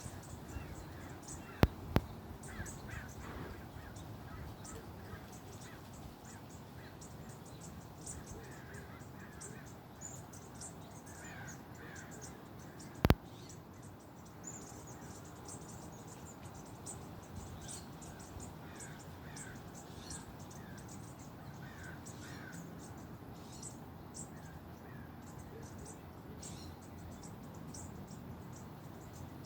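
Outdoor birds calling: repeated short calls in small groups, over many quick high-pitched chirps and a steady background hiss. Sharp clicks sound twice about two seconds in and once, louder, about thirteen seconds in.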